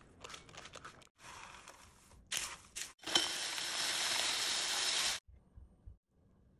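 Crisp baked granola (oats, nuts and seeds) crunching and rustling as a spatula stirs it on a parchment-lined pan, then a steady rushing rattle for about two seconds as it is poured off parchment paper into a glass jar, cutting off abruptly.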